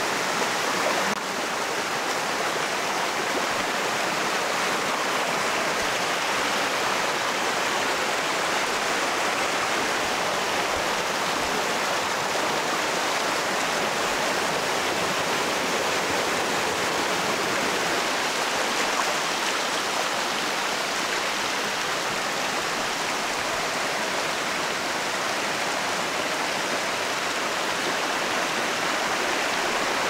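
Small mountain stream running over rocks in shallow cascades, a steady, even rush of water.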